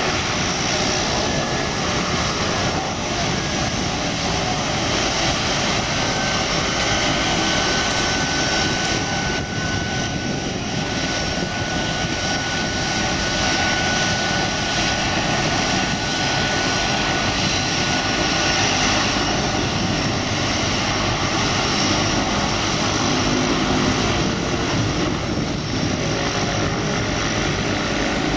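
Twin Otter's two PT6A turboprop engines and propellers running in a steady drone as the floatplane taxis on the water. A faint high whine rides over it for several seconds midway.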